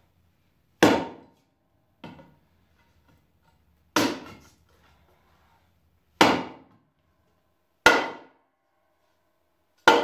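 Hatchet blade chopping into an upright wooden board, six sharp blows spaced one to two seconds apart, the second one lighter.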